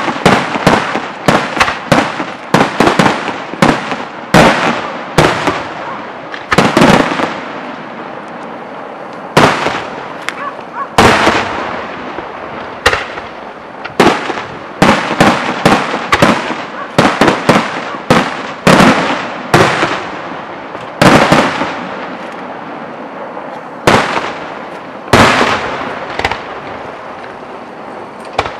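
Aerial firework shells bursting in a rapid, irregular series of sharp bangs, often in quick clusters, each followed by a rolling echo, with a few short lulls.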